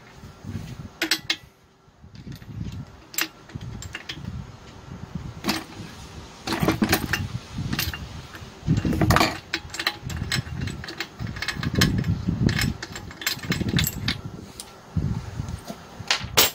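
Spark plug being unscrewed from the cylinder head of a four-stroke brush cutter engine with a tubular plug wrench: irregular metal clicks and clunks of the wrench against the engine, with handling knocks.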